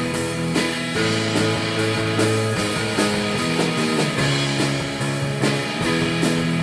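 A rock band of electric guitar, electric bass and drum kit playing an instrumental passage, with sustained guitar chords over a steady bass line and drum beat.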